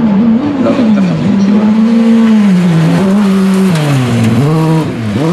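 Autocross racing car's engine running hard on dirt, its pitch holding high, then dropping sharply twice in the second half and climbing back each time.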